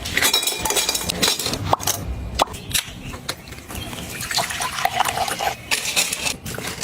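Quick clicks, clinks and rustling of small household items and containers being handled.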